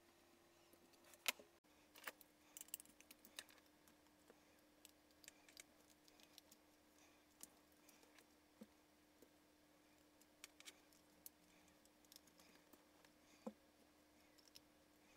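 Faint, scattered small clicks and ticks of a precision screwdriver working tiny M2 screws into a die-cast model car's base, with a sharper click a little over a second in.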